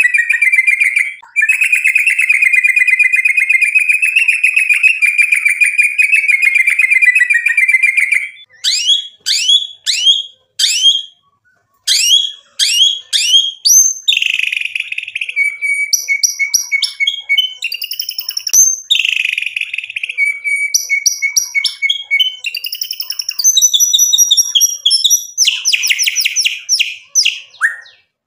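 White-rumped shama (murai batu) singing. It opens with a fast, unbroken rattling trill for about eight seconds, then switches to a run of quick rising notes. After a brief pause it moves into varied phrases of trills and sharp high notes.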